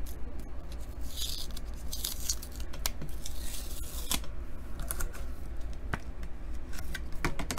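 Adhesive tape being picked at and peeled off a hard clear plastic card case: a few short stretches of scratchy tearing, with light clicks and taps of the plastic case in between.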